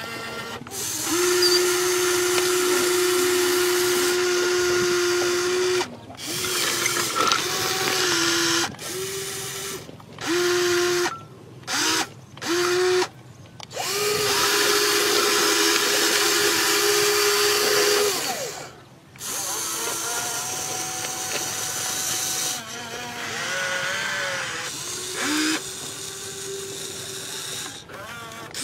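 Electric motors and gearboxes of a radio-controlled excavator whining as it crawls over ballast stones and moves its boom. It runs for a few seconds, stops and starts in several short bursts, then runs steadily again for a few seconds.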